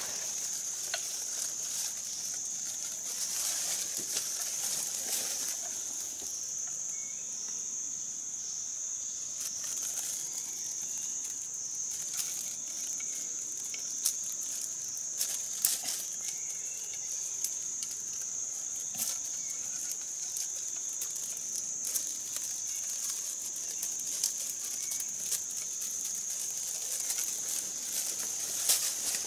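Forest insects droning steadily at one high pitch, with scattered rustling and a few sharp snaps of leaves and twigs, the loudest near the middle and at the end.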